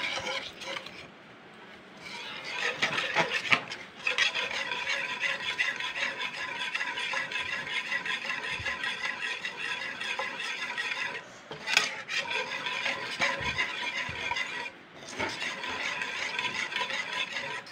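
Wire whisk scraping and rubbing steadily against a pot as thick chocolate rice-flour and coconut-milk batter is stirred constantly over low heat, with a few brief pauses and a sharp clink near twelve seconds.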